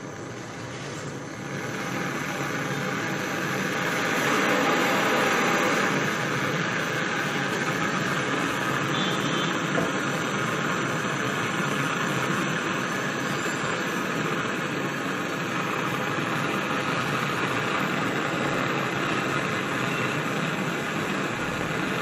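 Handheld gas canister blow torch burning with a steady hissing flame, growing louder over the first few seconds, as it heats the brazed joint of a refrigerator's filter drier to unsolder it.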